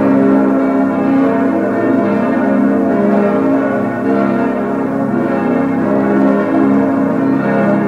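Full peal of six bronze church bells, cast by Schilling in 1958 and tuned A♭–B♭–D♭–F–A♭–B♭, all ringing together with their strikes overlapping continuously.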